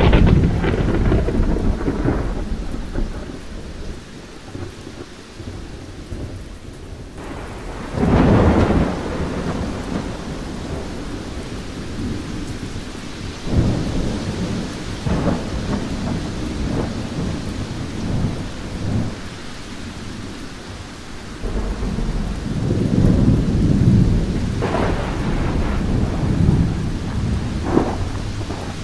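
Thunderstorm: steady rain with rolling thunder rumbling in waves, the strongest roll about 8 seconds in and a longer one from about 22 to 25 seconds.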